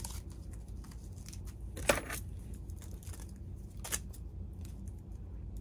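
Scissors and crinkling plastic shrink wrap around a new chainsaw recoil starter spring: faint rustling with a few sharp clicks, the loudest about two seconds in and a smaller one near four seconds.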